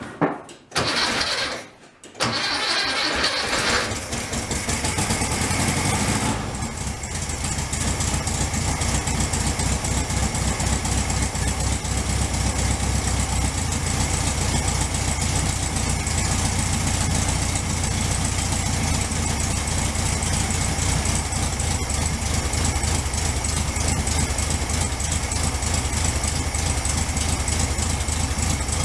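Cold start of a 1964 VW Beetle's air-cooled 1500cc flat-four: the starter cranks in short bursts and the engine catches about two seconds in. It runs faster for a few seconds, then settles into a steady idle that sounds pretty good.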